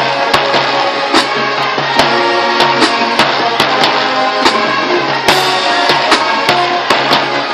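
High school marching band playing loudly: brass holding chords over a steady drumline beat, with a cymbal crash about five seconds in.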